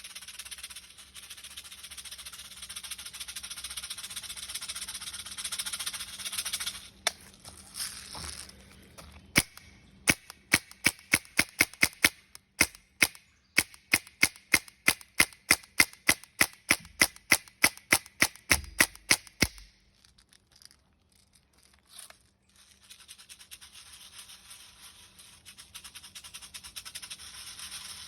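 Air gun firing a rapid string of about thirty shots, roughly three a second, each a sharp crack. A steady hiss comes before the string.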